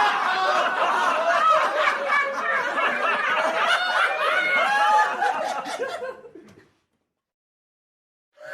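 A group of people laughing together, many voices overlapping. The laughter fades out about six seconds in, then there is silence until another burst of laughter starts right at the end.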